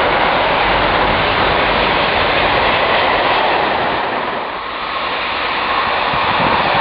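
Freight train rolling past at speed, a steady rumble of wheels on rail. About four and a half seconds in, the noise dips briefly as the last wagons go by, then swells again as a second train comes up.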